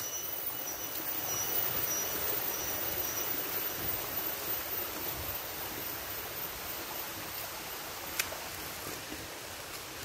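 Forest stream running over rocks, a steady rushing hiss. A faint high chirp repeats over it for the first few seconds, and there is a single sharp click near the end.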